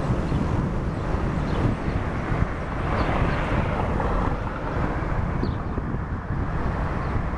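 Wind buffeting the microphone over the steady sound of a Beechcraft Hurón (King Air) twin turboprop taxiing away, swelling slightly about three seconds in.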